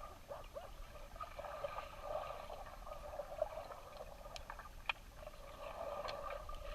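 Faint swimming-pool water sloshing and gurgling, with a few sharp clicks about halfway through.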